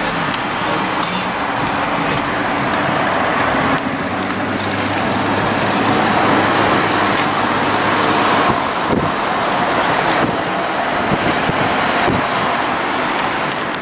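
Car road noise heard from inside the cabin while driving: a steady rush with a faint engine hum underneath.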